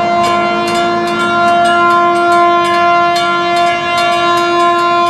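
A GP38-2 locomotive horn held in one long steady chord, over the rapid clanging of US&S teardrop mechanical crossing bells.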